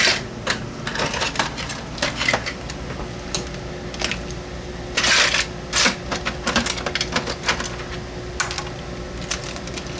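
Irregular clicking and clattering of hard-shelled blue crabs knocking against each other and a metal pot as they are put in to boil, with a longer rattle about five seconds in. A steady hum runs underneath.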